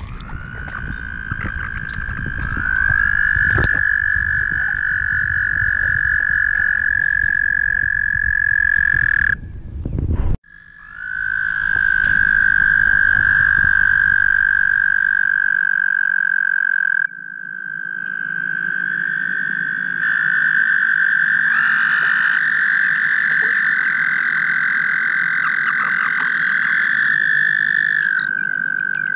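Male American toads trilling in a breeding chorus: long, steady high-pitched trills, several overlapping at slightly different pitches. The trills stop briefly about ten seconds in, then start again.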